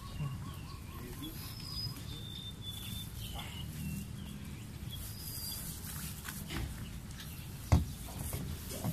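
Faint outdoor background: a low steady rumble with a few short, high bird chirps, and one sharp knock near the end.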